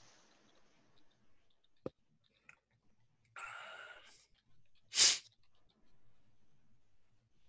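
Small sounds of a person at a close microphone: a sharp click a little under two seconds in, a breathy exhale lasting about a second, then a short, loud puff of breath into the microphone about five seconds in.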